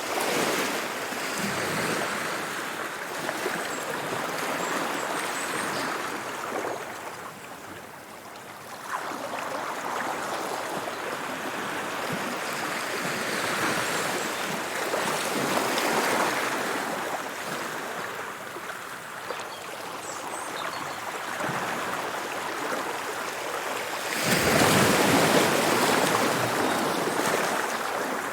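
Sea waves washing in and drawing back, the rush of water swelling and fading every few seconds, with the biggest surge near the end.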